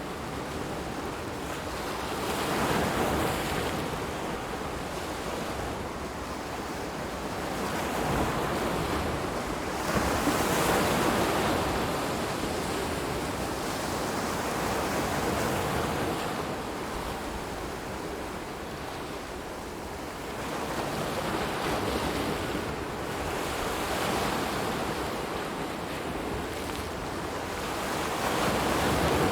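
Ocean waves washing onto a shore: a steady rush of surf that swells and falls back every several seconds.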